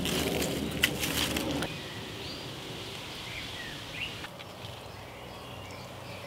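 Rustling of foliage and a sharp snip of hand pruning shears cutting a plant stem, about a second in. After that comes quieter garden ambience with a few faint bird chirps.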